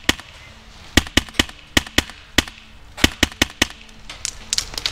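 Airsoft guns firing: a string of sharp cracks, some single and some in quick runs of two to four, getting denser near the end.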